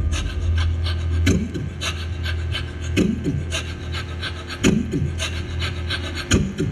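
Stage-show backing track over the PA: a dark sound-effect passage of scraping, rasping noises and quick clicks over a steady low drone, with a falling swoosh about every second and a half.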